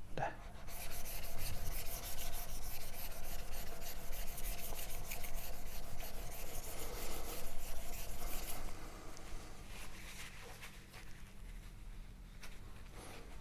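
Steel plane iron rubbed back and forth on a wet 8,000-grit water stone, a gritty scraping of quick strokes: the final polishing stage of sharpening. It stops about nine seconds in, giving way to softer rustling as the blade is wiped with a paper towel.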